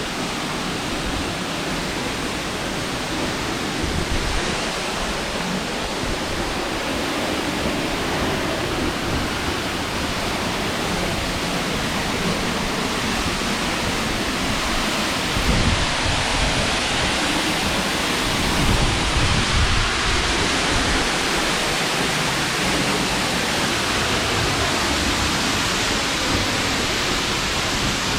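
Henrhyd Falls pouring, heard from close by on the path behind the falling water: a loud, even rush of water that grows slightly louder. Low rumbles break in on the microphone a little past halfway.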